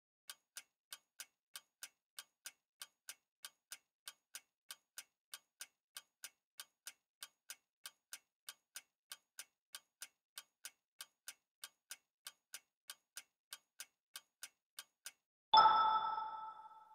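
Quiz countdown timer sound effect: a clock ticking evenly about three times a second, then a bright chime ringing out near the end as the correct answer is revealed.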